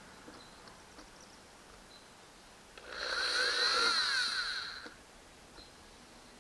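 Cordless drill running for about two seconds, its whine rising and falling in pitch, as it bores the top-left screw hole for a transducer mounting bracket into a fiberglass boat transom.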